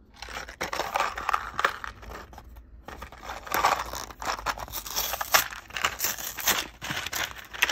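Paper packaging of a Lego minifigure pack being torn open and crinkled by hand: a run of irregular rips and rustles with sharp little crackles.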